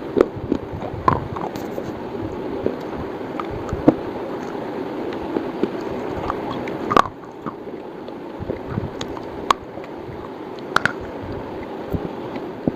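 Close-miked chewing and biting of hard slate, grinding steadily with scattered sharp crunches; the loudest crunch comes about halfway through.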